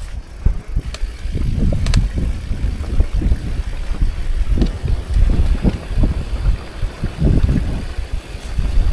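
Mountain bike riding fast along a dirt singletrack: wind buffeting the handlebar-mounted camera's microphone as an uneven low rumble, with the knobby tyres on the dirt and the bike rattling and clicking over bumps.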